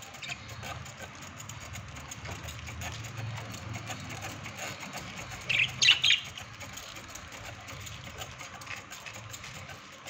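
Pet budgerigars chirping faintly, with a short loud burst of squawking calls about six seconds in, over a low steady hum.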